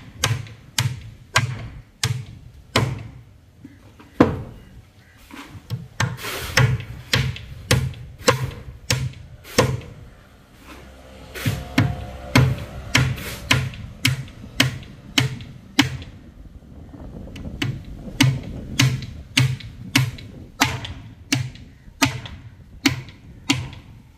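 Hammer striking the face of a concrete column again and again, sharp blows about two a second, each with a dull thud, with short pauses about four and ten seconds in.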